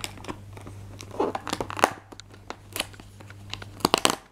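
Fingers picking at and tearing open a perforated cardboard advent-calendar door: scattered clicks and crinkles of cardboard, with a burst about a second in and another near the end.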